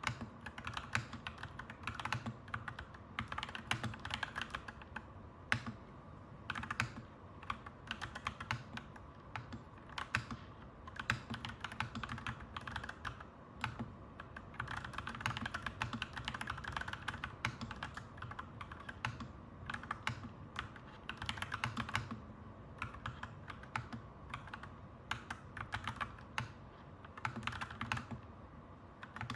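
Clacky mechanical keyboard being typed on, dense irregular keystrokes in bursts with short pauses between them, over a steady low background hum.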